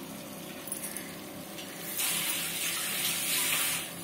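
Water running for about two seconds, starting about two seconds in and stopping shortly before the end, over the faint steady sizzle of masala cooking on a low flame.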